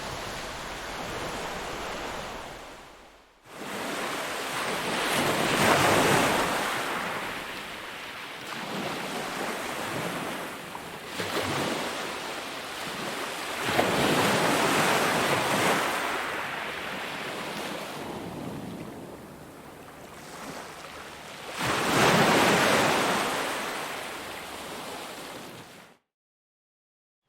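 Ocean waves washing onto a shore, the surf swelling and ebbing in three big surges roughly eight seconds apart. The sound fades out and back in about three seconds in, and cuts off to silence near the end.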